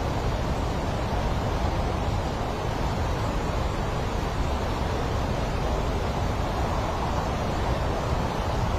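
Fast-flowing monsoon river or waterfall water rushing: a steady, unbroken rush of noise, heaviest in the low end.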